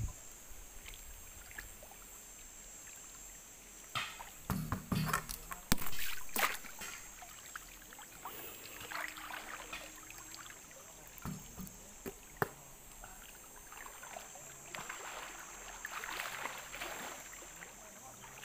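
Pool water splashing and sloshing as a person moves about in a swimming pool, with a cluster of sharp splashes about four to seven seconds in and softer washes of water later, over a steady high hiss.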